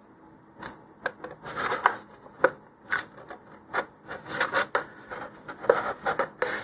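Masking tape being pulled, pressed down and rubbed along a cardstock collar: a run of short, irregular rasps and crinkles of tape and card under the fingers.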